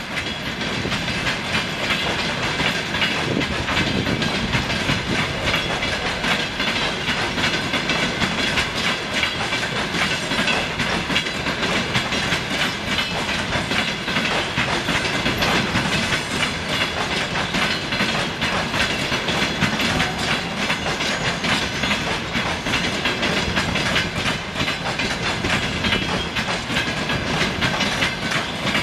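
Passenger train coaches rolling past steadily, their wheels clicking over the rail joints.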